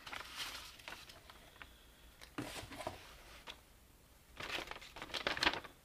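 Paper being handled over a cardboard box of foam packing peanuts: rustling and crinkling in short bouts, loudest near the end.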